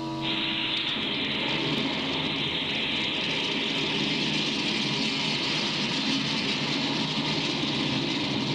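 Unha-3 rocket engines firing at liftoff: a loud, steady rushing noise that starts abruptly.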